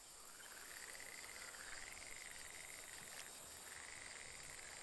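Faint frog calls: a pulsed croaking that rises and falls in pitch about once a second, repeated several times over a steady high hiss.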